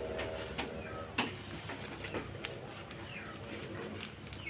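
Plastic-wrapped courier parcel handled and turned over on a wooden table: scattered taps and rustles, the sharpest about a second in. Birds call in the background with short falling chirps.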